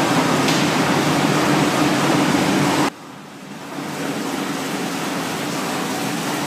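Steady factory background drone with a low hum. It drops off suddenly a little under three seconds in, then comes back quieter.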